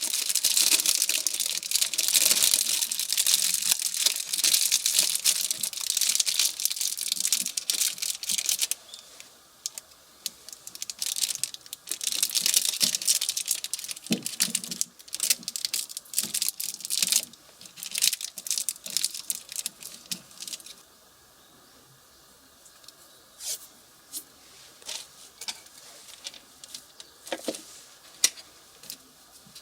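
Long stretches of rough tearing and crackling with many small clicks, like material being torn or scraped, then scattered clicks and knocks of handling.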